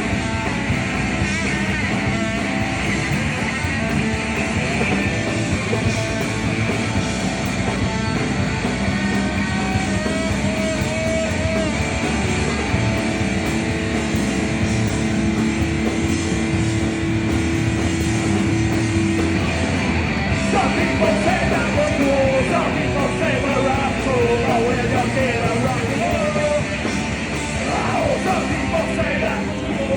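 Live punk rock band playing loud, with electric guitars and some singing; a single note is held for several seconds midway.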